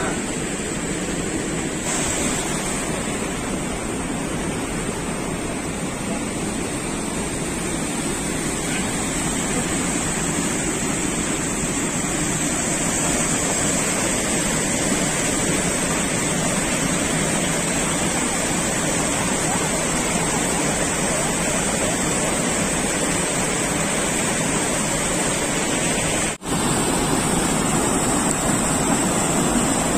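Water gushing and churning through a dam's sluice outlet: a steady, loud rush of white water. It cuts out for an instant a few seconds before the end.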